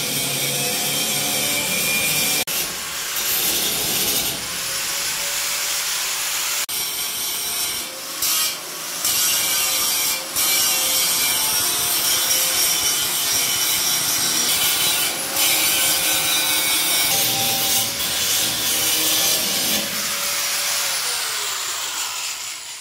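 Hand-held electric grinder working on metal: a loud, steady abrasive hiss over the motor's tone, with a few brief breaks in contact. It winds down near the end.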